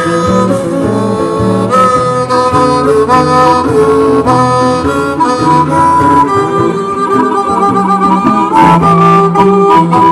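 Music with a harmonica playing the melody over guitar accompaniment, one held note after another.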